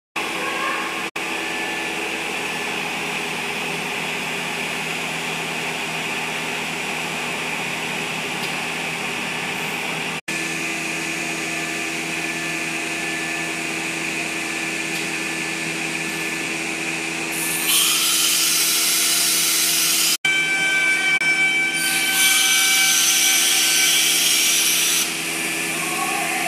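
SOSN 1325 ATC CNC router running with a steady mechanical whine. Twice in the second half a louder noise with much more treble comes in, once for about two seconds and once for about three.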